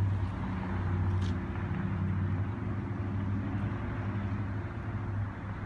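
Car driving slowly: a steady low engine hum with road and tyre noise.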